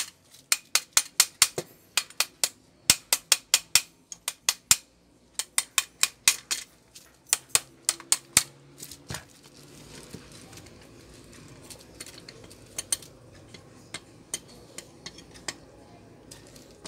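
Small hammer tapping on a stand fan's electric motor, metal clinks in quick runs of about five taps a second with short pauses, through roughly the first half, then only occasional faint clicks. The tapping frees a freshly fitted, tight shaft bushing so the rotor can turn.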